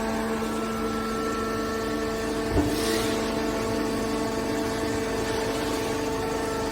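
Hydraulic scrap metal baler's motor and pump running with a steady hum, with one knock about two and a half seconds in.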